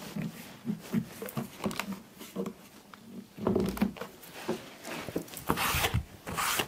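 Clamps being worked on a glued-up end-grain wooden board: a run of light clicks and knocks as the clamp parts are handled and tightened, with one heavier knock about halfway through. Near the end, a cloth rubbing across the wood as glue squeeze-out is wiped off.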